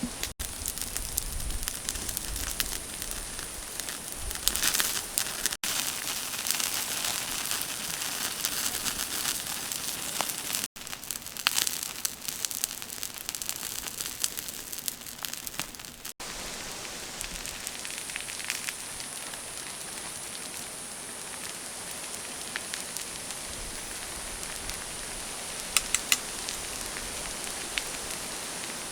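Steady sizzling and crackling from chicken wings cooking over a wood fire, with scattered sharp crackles. The sound drops out for an instant four times, at cuts.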